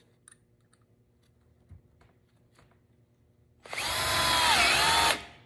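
Small 12-volt DeWalt cordless drill running in drill mode, driving a screw into wood for about a second and a half starting about three and a half seconds in, its motor pitch dipping under load midway and then recovering. With no clutch engaged it never clicks and keeps spinning, stripping out the screw hole.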